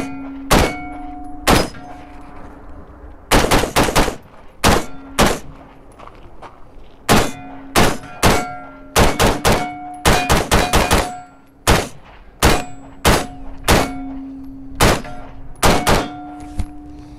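Stag Arms 3-Gun AR-15-style rifle firing .223 rounds in fast strings, some two dozen shots with short pauses between groups. Steel targets ring with a steady hum after many of the hits.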